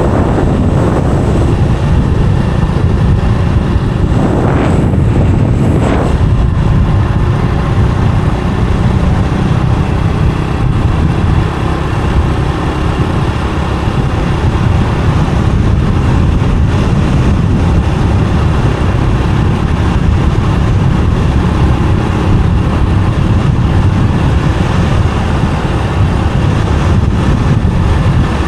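Riding noise from a motorbike on the move: steady heavy wind buffeting the microphone over the engine and road noise. Two short rushes about four and six seconds in.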